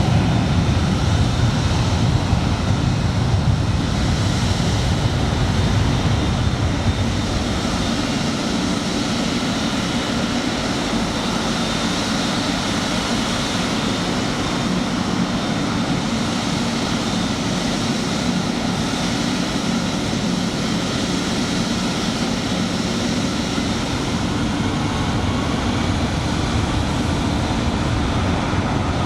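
Jet aircraft engines running steadily: a constant rush of noise with a faint high whine, the low rumble easing after about seven seconds.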